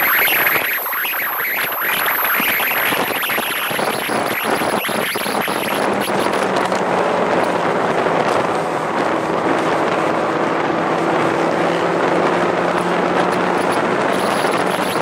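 McLaren MP4-12C driving at speed: a loud rush of wind and road noise on a camera mounted on the car, buffeting the microphone in the first few seconds. A steady low drone from its twin-turbo V8 at cruise comes through from about six seconds in.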